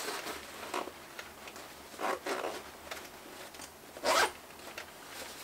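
Zipper on the big front pocket of a Shimoda X70 backpack being pulled open in a few strokes, with the loudest and quickest zip about four seconds in.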